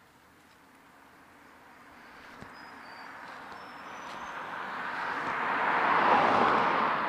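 A car driving past, its tyre and engine noise growing steadily louder for about six seconds, peaking as it goes by near the end and then starting to fade.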